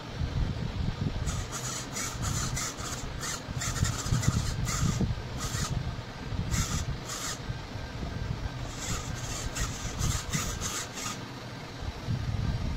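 RC steering servo buzzing in short, irregular bursts as it swings the front wheels from side to side through the PVC-sheet steering linkage, over a steady low rumble.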